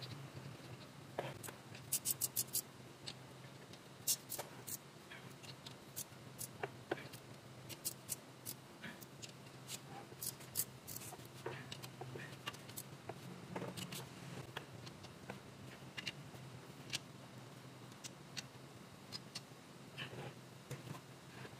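Sharp metallic clicks and clinks of a wrench working the nuts that hold a rear axle shaft's retainer to the axle housing flange, scattered irregularly, with a quick run of about five clicks a couple of seconds in, over a low steady hum.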